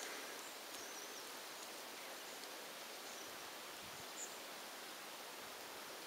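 Quiet rural outdoor ambience: a steady faint hiss, with a couple of faint high bird chirps about a second in and again about four seconds in.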